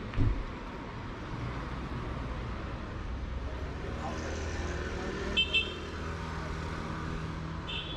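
Street traffic with a vehicle engine running close by, and a vehicle horn giving two quick short toots about five and a half seconds in, then one more near the end. A low thump comes just after the start.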